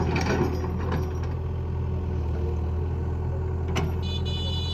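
A tractor's diesel engine idling steadily, with a couple of sharp clicks. A high, steady tone starts near the end.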